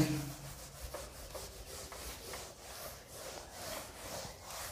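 Whiteboard eraser rubbing across a whiteboard in repeated back-and-forth strokes, wiping off marker writing.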